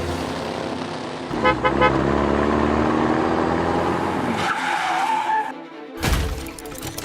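Vehicle sound effect, a car engine running, over background music, with a sudden loud knock about six seconds in.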